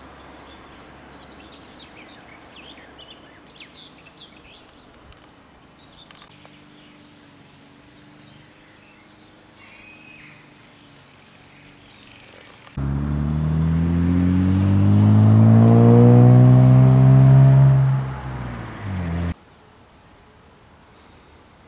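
A motor vehicle's engine revving, its pitch climbing for a few seconds and then easing down. It starts and stops abruptly about two-thirds of the way through. Before it there are faint chirps over a quiet outdoor background.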